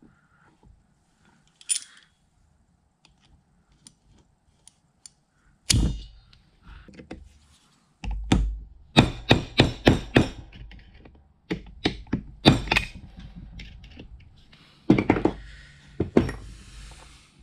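Hammer blows on a steel punch held against a seized key in the shaft of a cast-iron gearbox housing: one sharp strike, then a quick run of about ten blows, then two more. The key is stuck fast in its slot and will not shift.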